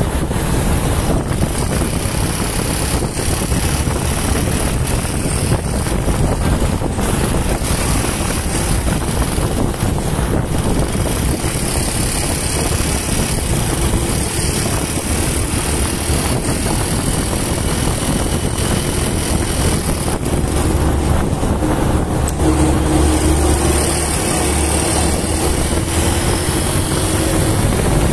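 Honda TMX 125 motorcycle's single-cylinder four-stroke engine running under load while riding, mixed with wind buffeting the microphone and road noise. The engine's low rumble gets a little louder about two-thirds of the way through.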